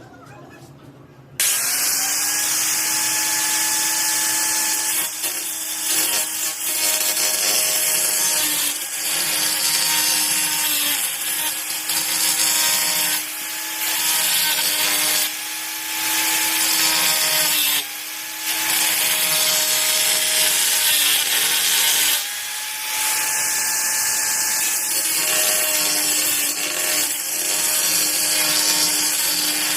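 Titanium AG710 710 W angle grinder switched on about a second and a half in, then running continuously with a steady high whine and a loud hiss as the disc works against the material. The level dips briefly several times as the load eases.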